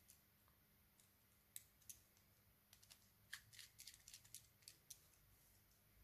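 Faint scattered small clicks and ticks, most of them between about one and a half and five seconds in: hands handling thin wires and a small plastic push-button switch while fastening the wires to its screw terminals.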